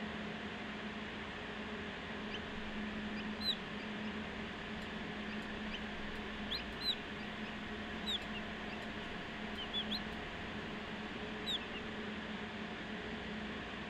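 Newly hatched chicks giving scattered short, high peeps, about ten of them, over the steady fan-like hum and hiss of the hatcher.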